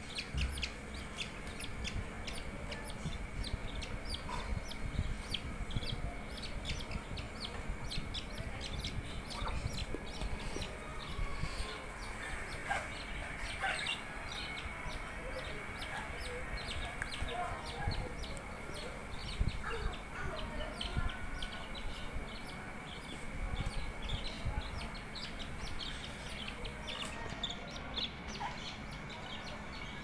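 Budgies chirping: a busy, irregular run of short chirps and clicks, with a faint steady high tone beneath.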